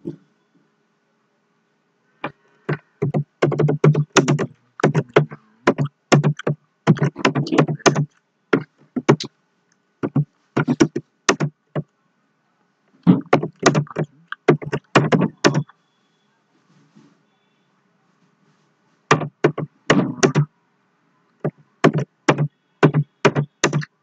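Computer keyboard typing: quick bursts of keystrokes with short pauses between words and a longer pause about two-thirds of the way through.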